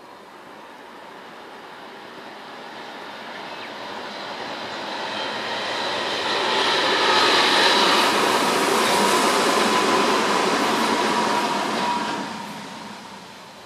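A Tobu 100-series Spacia limited express electric train passes. The sound builds over the first several seconds and is loudest for about five seconds, a steady high whine over the rolling noise of wheels on rail, then falls away quickly near the end.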